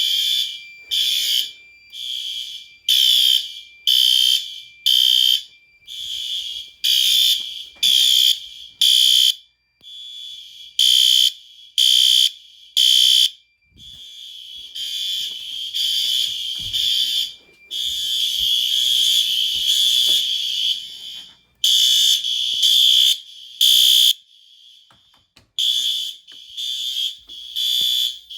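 Several System Sensor fire alarm horns sounding together during a system test, each pulsing about once a second but out of step with the others. In places their pulses overlap into a continuous sound for a few seconds.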